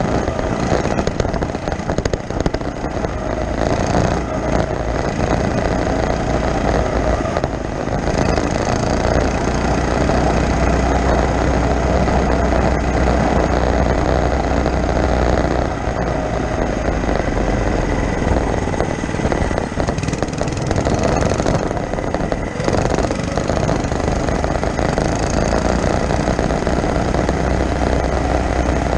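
Mini bike's small engine running steadily as it rides along, mixed with wind on the camera's microphone.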